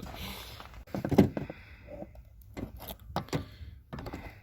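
A few scattered knocks and clunks, the loudest about a second in, as parts and tools are handled during work on the exhaust manifold.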